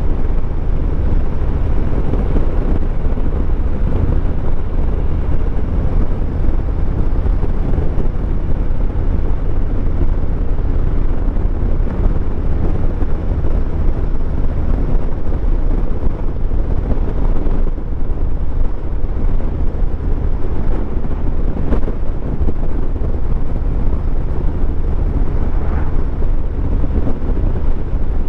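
Wind rushing over the microphone with the low, steady rumble of a Harley-Davidson Heritage Classic 114's Milwaukee-Eight V-twin underneath, while riding at a steady speed.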